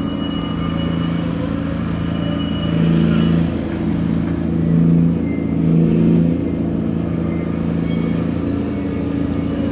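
Diesel engine of a gut ship's grab crane running under load during cargo handling, a steady low drone that swells three times in the middle as the machinery works harder.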